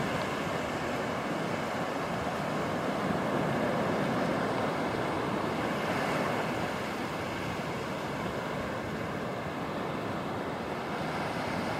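Surf breaking and washing up a sandy beach: a steady rush of waves that swells a little a few seconds in.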